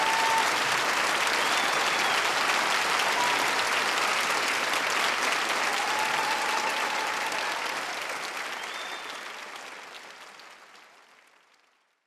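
Large audience applauding, with a few short whistles, the applause fading out over the last few seconds.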